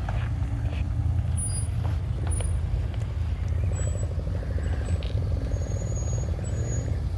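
2015 Ram 1500 pickup running low and slow as it creeps over a rocky off-road trail: a steady low rumble with a few sharp knocks.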